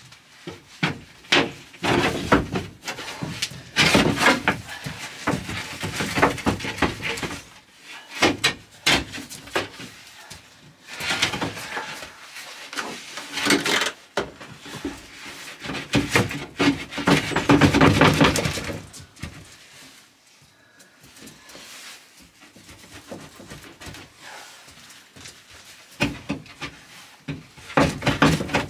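A large 12 mm plywood floor panel scraping, knocking and rubbing against the van's floor and sides as it is shifted and angled into place, with footsteps shuffling on the metal floor. The sound comes in loud bouts of scraping and knocks, with a quieter stretch about two-thirds of the way through.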